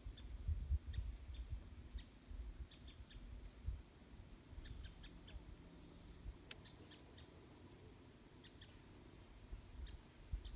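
Birds chirping in short, scattered calls over a faint steady high tone and an uneven low rumble.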